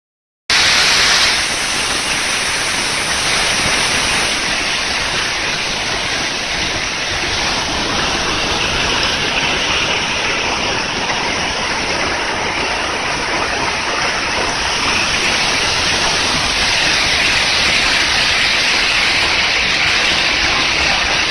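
A waterfall rushing, a loud, steady roar of falling water that starts abruptly about half a second in.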